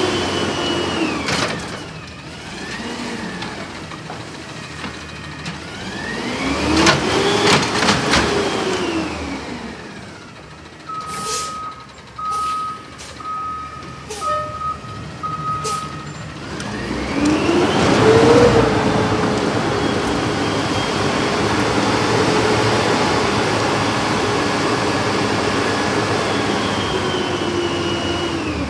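Peterbilt 320 front-loader garbage truck with an Amrep body working a dumpster pickup: the engine revs up and falls back twice to drive the hydraulic arms, with metal clanks from the forks and container. In the middle a reversing alarm beeps about six times at a steady pitch as the truck backs up.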